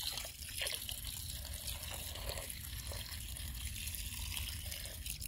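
Water from a garden hose running steadily into a metal bowl of freshly picked spinach leaves, rinsing them.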